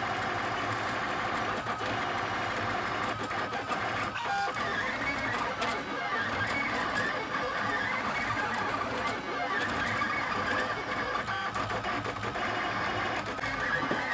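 Lulzbot AO-101 3D printer's stepper motors whirring steadily while printing, with a whine that keeps gliding up and down in pitch as the print head moves.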